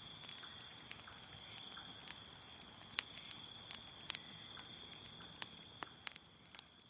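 Crickets chirping in a steady high trill, with the sharp pops and snaps of a crackling wood fire every second or so. The whole sound fades down near the end.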